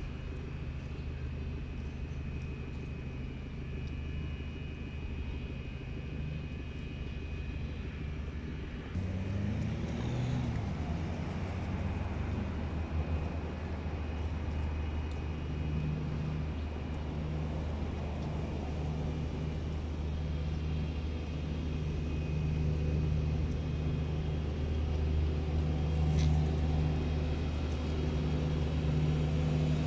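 A steady low engine drone that jumps louder about nine seconds in and then slowly builds.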